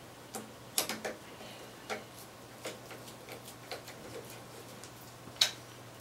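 Irregular light clicks and taps of a hand screwdriver and its nut-driver bit being handled, about nine in all, with the sharpest about a second in and another near the end.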